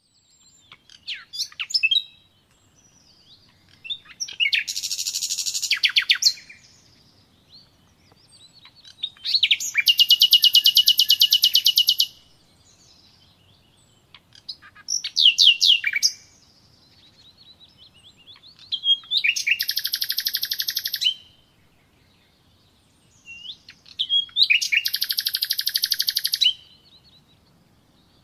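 A songbird singing, with a phrase about every five seconds: a few sharp high notes followed by a fast, high trill of rapidly repeated notes lasting one to two seconds.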